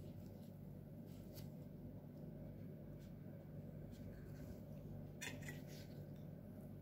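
Faint handling sounds of a metal spoon scooping and scraping in a ceramic bowl of meat sauce, with a few soft clicks and a sharper clink about five seconds in, over a steady low hum.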